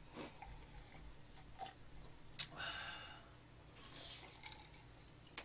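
Quiet eating sounds: a few sharp clicks of chopsticks against dishes and the soft crunch of chewing fried chicken.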